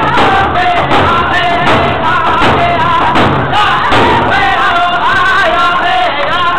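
Three men singing a hand drum song together, the melody falling in phrases, over steady beats on hand-held frame drums, about two and a half beats a second.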